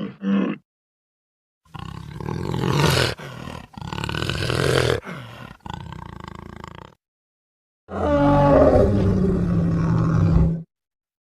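Prehistoric-mammal roars made as documentary sound effects: a stretch of loud, broken roaring calls lasting about five seconds, then after a pause one long low roar of nearly three seconds that cuts off suddenly.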